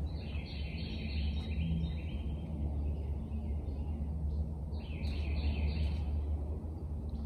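A bird singing two runs of quick high notes, each lasting about a second and a half, over a steady low background rumble.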